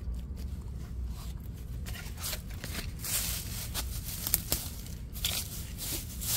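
Small hand hoe digging into soil through a mulch of dry pine needles and dead leaves: a run of irregular scraping, crunching strokes with crackling of the dry litter.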